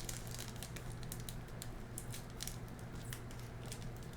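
Light, irregular ticks and crinkles of a plastic candy-kit packet and tray being handled, over a steady low hum.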